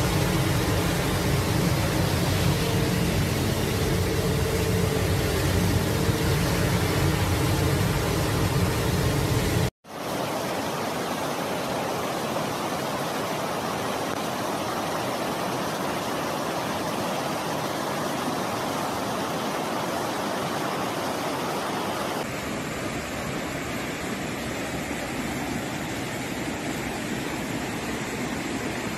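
Floodwater rushing in a torrent, a loud steady rush. The first part is a deep, heavy rush of water pouring over a wall. About ten seconds in it cuts off abruptly and gives way to a lighter rush of floodwater running down a street.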